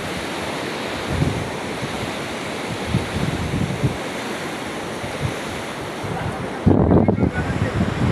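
Sea surf washing on the beach with wind rumbling on the microphone, a steady noisy hiss, and a louder burst of rumble a little before the end.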